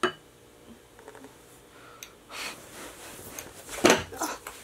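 A woman breathing hard in short noisy breaths, with a sharp click at the very start and a loud thump of quick movement about four seconds in.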